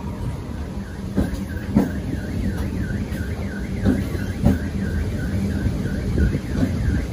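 An electronic warbling alarm tone, rising and falling about three times a second, starts about a second in and carries on steadily. Beneath it are the low rumble of the train and a few sharp knocks.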